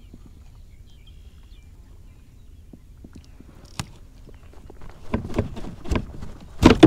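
Redfish thrashing on a plastic kayak deck while held: after a quiet stretch with one sharp click, a run of loud thumps and slaps against the hull starts about five seconds in.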